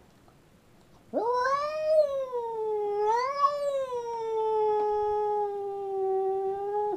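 Domestic cat's territorial yowl, caterwauling at a rival cat. It is one long drawn-out call that starts about a second in, rises, dips and rises again, then holds steady until it breaks off abruptly near the end.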